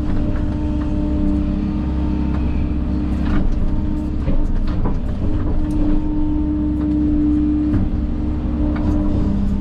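Engine of a heavy earthmoving machine running steadily, with a higher steady whine that breaks off and returns twice, and scattered cracks and knocks from the machine working through cane and brush.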